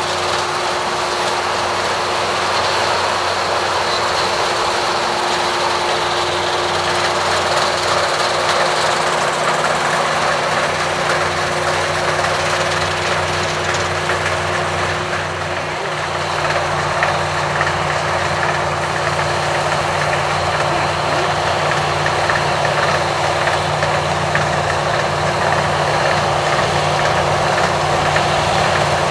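Massey Ferguson 40 combine harvester running steadily while harvesting wheat: a dense mechanical clatter over a steady engine hum, dipping slightly about halfway through.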